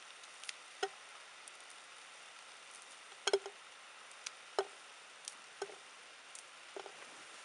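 Fresh snow peas being snapped into pieces by hand: about half a dozen crisp, short snaps at irregular intervals, the loudest a quick double about three seconds in, over a faint steady hiss.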